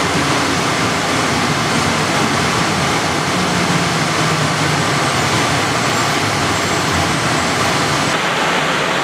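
Bombardier Innovia APM 100 people-mover car running on rubber tyres along a concrete guideway, heard from inside the cabin: a loud, steady rolling and running noise with a faint low motor hum.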